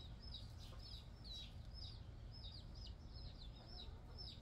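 Faint, repeated short high chirps, two or three a second, from the backyard chickens flocking around, over a low steady rumble.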